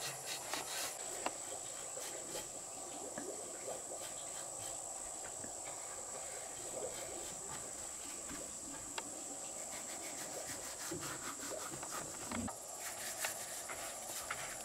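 An insect's steady high-pitched trill that holds one pitch, starts about a second in and stops near the end, over scattered light clicks and taps.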